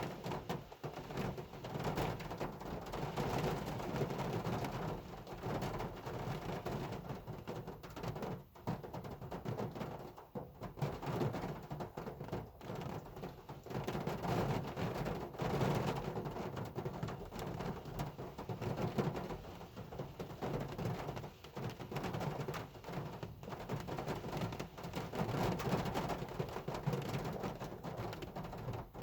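Hard rain falling on a car: a steady, dense patter of countless drops hitting the body and glass.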